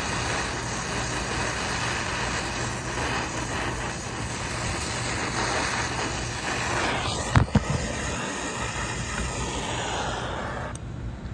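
Brazing torch flame running steadily as it heats a filter drier's sweated copper joint to unsweat it. A couple of sharp knocks come about seven seconds in, and the torch noise drops away near the end.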